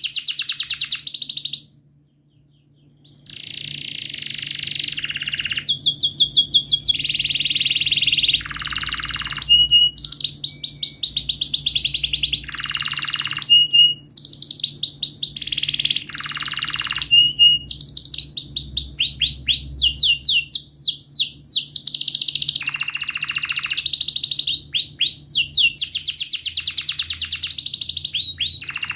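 Domestic canary singing a long song of fast rolling trills, one run of rapidly repeated notes following another, with a short break about two seconds in.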